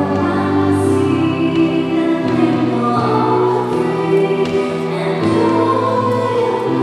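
A singer holding long, slow notes over sustained accompaniment: a slow, hymn-like song.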